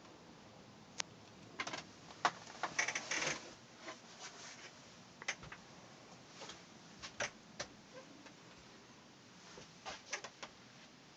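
Scattered light clicks and knocks at an irregular pace, with a quick run of them about two to three seconds in, against a quiet small-room background.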